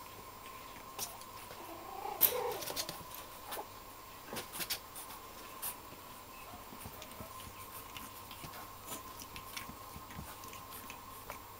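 Five-week-old black-and-tan Griffon puppies at play: one gives a short squeal about two seconds in, with scattered light taps and scuffles as they tumble about.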